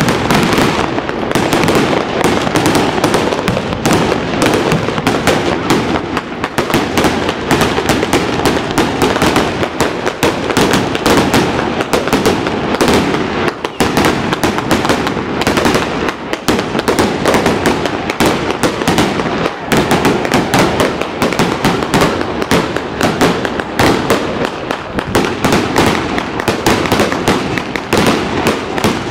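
Fireworks going off in a dense, unbroken crackle of many small bangs with no pause.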